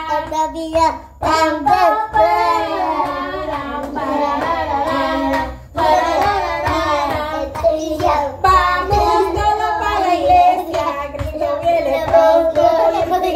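Young children singing a song together, the melody rising and falling without a break, with a few sharp taps.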